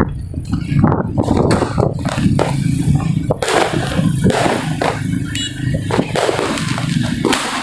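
Firecrackers going off in sharp bangs at irregular moments, over the steady running of motorcycle engines.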